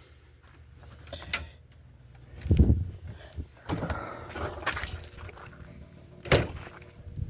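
A door or hatch of the camper van being worked: a click, a heavy thump, rustling handling noise, and another sharp click near the end.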